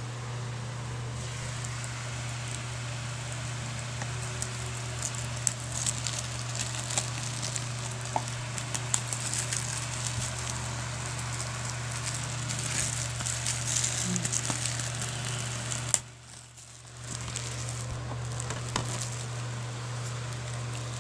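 Clear plastic shrink wrap on a DVD case crackling and crinkling under fingers, over a steady low hum. The sound cuts out briefly about three-quarters of the way through.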